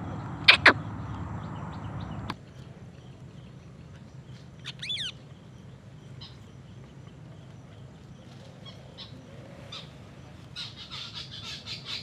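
Rose-ringed parakeet calling: two loud, sharp, falling screeches about half a second in, then a quick cluster of chirps, scattered faint chirps, and a run of rapid chattering near the end.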